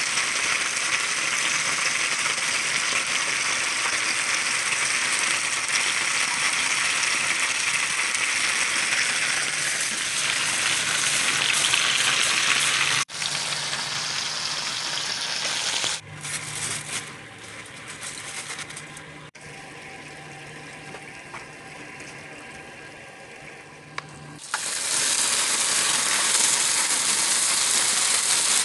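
Steak and cubed potatoes with onions sizzling in a frying pan, a dense steady sizzle. About halfway through it drops out for several seconds, leaving a much quieter stretch with a low steady hum, then the loud sizzle returns near the end.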